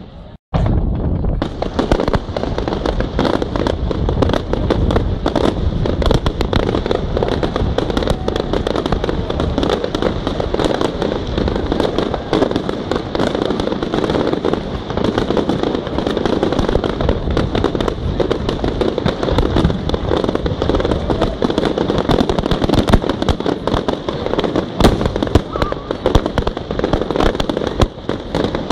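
Fireworks display: a dense, continuous barrage of bangs and crackling bursts. The sound drops out briefly about half a second in, then carries on without a break.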